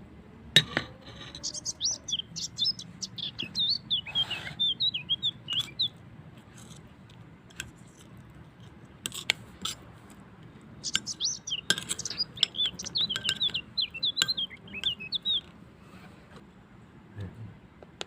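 A small songbird sings in two bouts of rapid, high warbling chirps, with a short pause between them. A few sharp clinks, like glass or dishes, come through now and then.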